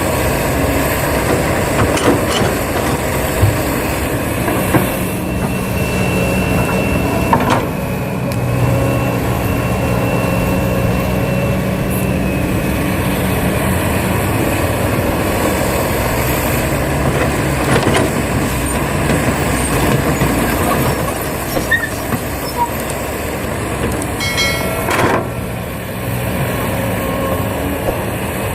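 Excavator running steadily while loading soil into a dump truck, with a few sharp knocks and clanks and a faint high whine that rises and falls now and then.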